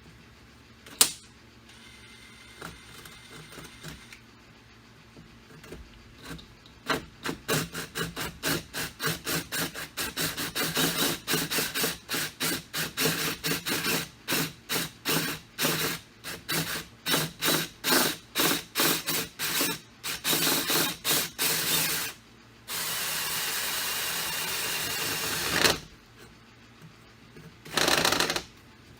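Power drill driving a hole saw into the Jeep door, run in many short trigger pulses at about two a second, then held for a steady run of about three seconds, with one more short burst near the end.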